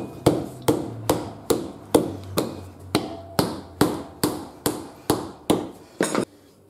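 Rubber hammer striking a motorcycle tyre's sidewall in a steady run of dull knocks, about two to three a second, working round the wheel to break the tyre bead from the rim. The knocks stop near the end.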